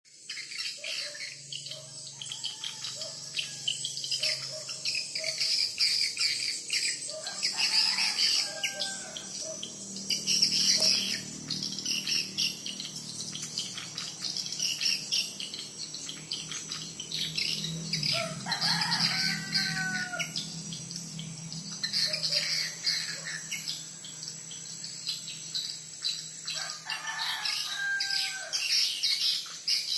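Edible-nest swiftlet lure call played from the tweeter speakers of a swiftlet house: a dense, rapid, high twittering chirp that never lets up, broken three times by bouts of lower gliding whistled notes.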